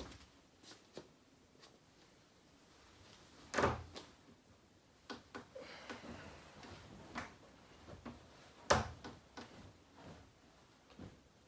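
Handling and rustling sounds as a person gets onto a bed and pulls at the duvet, with small knocks and two loud thumps, about three and a half and nine seconds in.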